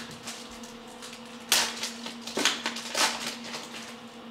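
Glossy trading cards being handled and flipped through by hand: three brisk swishes of card stock sliding over card, the first and loudest about a second and a half in, over a faint steady hum.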